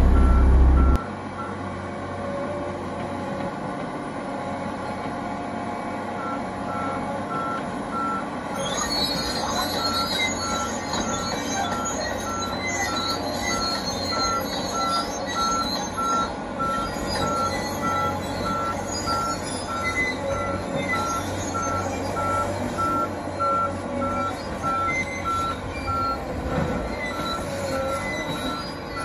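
Eltec 277 tracked log loader at work: its engine runs steadily, and a warning alarm beeps at an even pace from about six seconds in. From about eight seconds in, high metallic squealing joins in as the machine moves and handles logs. A loud low rumble cuts off about a second in.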